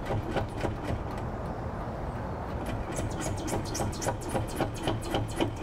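Loose rear bumper wing on a Land Cruiser being shaken by hand, rattling and knocking in quick irregular clicks that come thicker and louder in the second half. The rattle comes from the wing not being tied into the frame.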